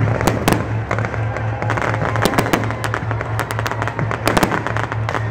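Fireworks going off in a rapid run of sharp bangs and crackles over loud electronic dance music with a steady deep bass. The bangs come thicker from about two seconds in.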